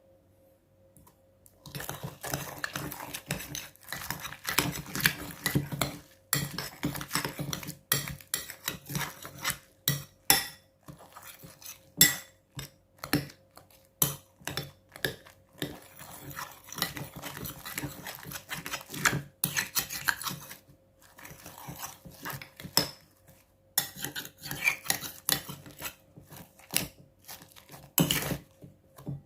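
A utensil stirring slime mixture in a bowl, with irregular clinks and scrapes against the bowl starting about two seconds in.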